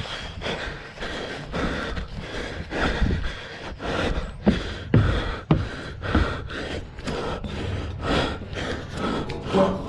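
A racer's heavy, rapid breathing right at a mouth-mounted action camera, in a quick, even rhythm, with a few louder thumps about halfway through.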